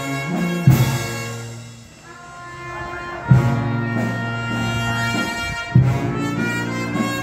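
Brass band playing a slow processional march: sustained brass chords, with a heavy percussion beat about every two and a half seconds.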